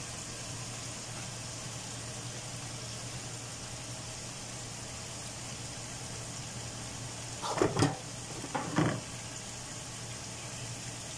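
Chicken pieces cooking in a pot with a faint, steady sizzle over a low hum. Two brief clatters near the end.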